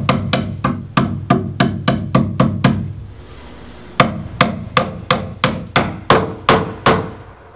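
Hammer driving 1¼-inch nails through a steel Simpson Strong-Tie hurricane clip into a wooden roof truss: steady blows about three a second, in two runs with a pause of about a second between them.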